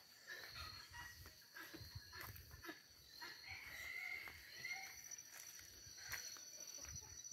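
Faint outdoor ambience: insects trilling steadily at a high pitch, a short animal call about halfway through, and soft footsteps on dirt.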